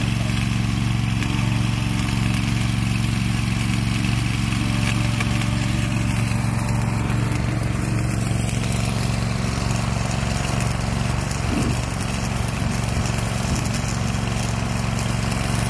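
Automatic arc-welding machine working along a railway rail: a steady low machine drone with the hiss and crackle of the welding arc over it.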